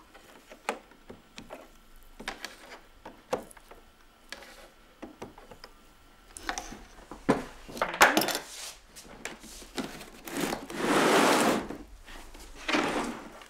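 Light clicks and ticks of a soldering iron and solder wire against the lead came joints of a stained-glass panel. Then, from about six seconds in, louder scraping and rubbing as the leaded panel is shifted across the wooden workbench, the longest stretch coming a little before the end.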